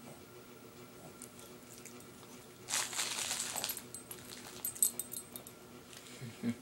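A small dog rolling off its back and sitting up on carpet: about a second of rustling scuffle nearly three seconds in, then several light metallic jingles and clicks.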